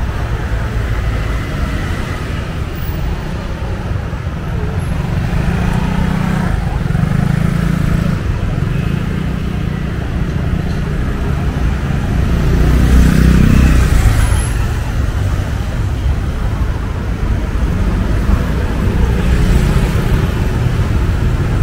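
Street traffic: motor vehicles running in a steady din, one passing closer and louder about two-thirds of the way through, with people's voices mixed in.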